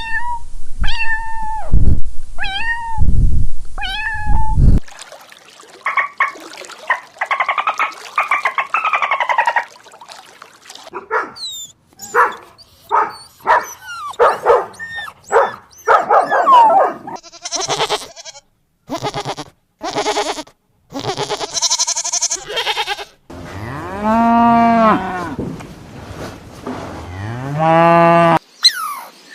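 A string of different animal calls played one after another, starting with four short falling calls, then many short calls. It ends with two long, low cattle moos.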